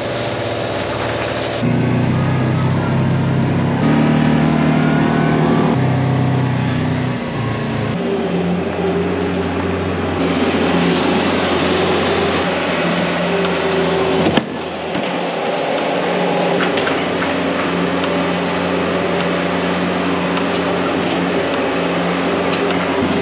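Engines running in a string of short clips that change every few seconds: a Kawasaki Teryx side-by-side and a New Holland L170 skid steer loader at work on the farm.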